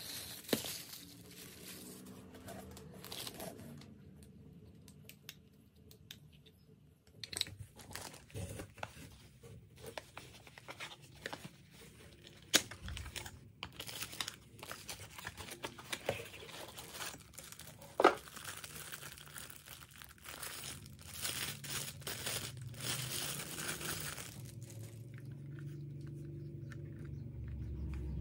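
Plastic packaging crinkling and a small cardboard box being torn open and handled, irregular rustling with scattered sharp clicks and taps as hard plastic parts are taken out.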